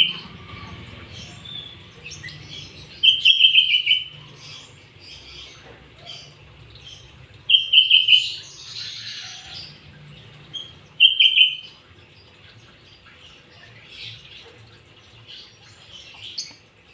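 A pleci (white-eye) chirping: short, loud bursts of rapid repeated high notes, each under a second long, coming about every four seconds. Fainter chirps lie between the bursts.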